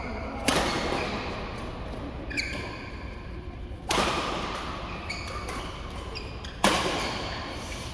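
Badminton racket strikes on the shuttlecock during a rally: three loud, sharp hits about three seconds apart, each ringing in the large hall, with short squeaks from shoes on the court mat between them.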